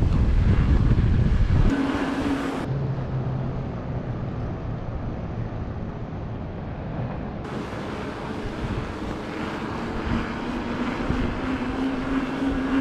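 Strong wind buffeting the microphone of a camera on a moving mountain bike: a loud low rumble for the first couple of seconds, then a quieter, steady rush of wind with a faint hum.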